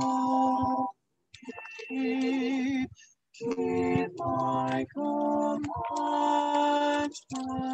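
Small choir singing sustained notes, the sound cutting out abruptly to silence for brief moments a few times: the music is garbled by a faulty audio feed.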